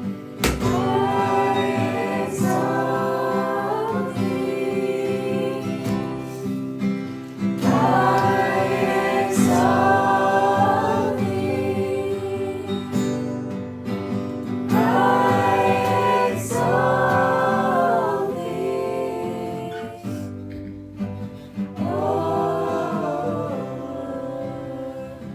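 Worship music: sustained chords with guitar, and four wordless sung or choir-like phrases rising and falling over them.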